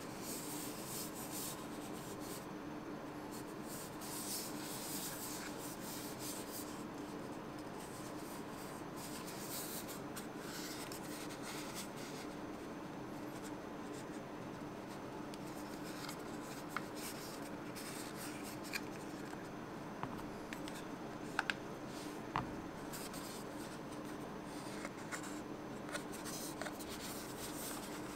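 Faint rubbing and handling of a plastic earphone charging case and its earpieces, with a few small sharp clicks in the second half, over a steady low hum.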